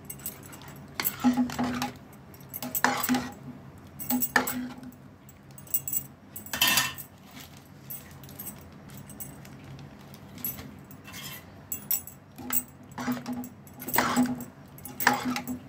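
Metal ladle stirring thick sambar in an aluminium pot, scraping and clinking against the pot's sides and bottom in irregular strokes every second or two.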